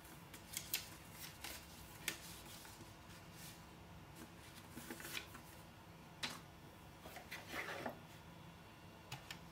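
Paper and cardboard packaging being handled: a folded paper leaflet rustling and crackling as it is unfolded, with scattered sharp ticks, and a longer rustle a little before the end as a hand reaches into the cardboard box.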